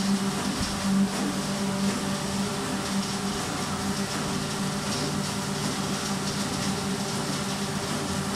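Corrugated paperboard production line machinery running: a steady low hum over a constant mechanical hiss, with a brief louder knock about a second in.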